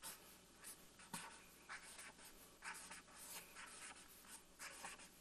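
Marker pen writing on flip-chart paper: a run of short, faint, irregular scratching strokes.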